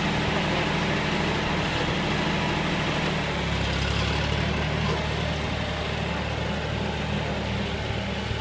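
John Deere farm tractor's engine running steadily as the tractor moves off; the engine note changes and gets deeper about three seconds in.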